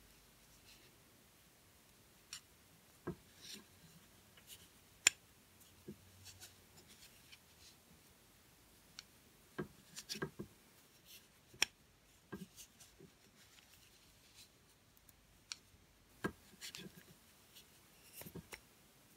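Knitting needles clicking and tapping against each other now and then as stitches are knitted, with faint rubbing of the yarn over the needles between the clicks.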